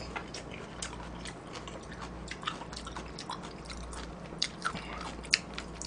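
A person chewing a mouthful of mulhoe, cold raw fish and vegetables, close to the microphone, with many small wet clicks and smacks scattered through it.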